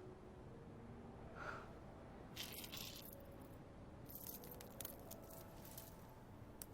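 Faint rattling and clinking of small hard objects, in a few short bursts about two and a half seconds in and again around four seconds in.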